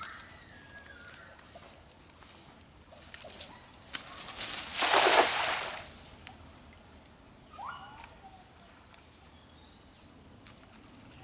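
Cast net thrown into a pond, landing on the water with a loud splash about five seconds in that lasts about a second.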